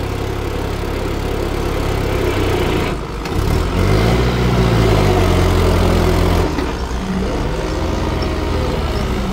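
Kubota farm tractor's diesel engine running steadily, then revving up louder and higher a few seconds in and dropping back after about six seconds, with a smaller rise and fall near the end.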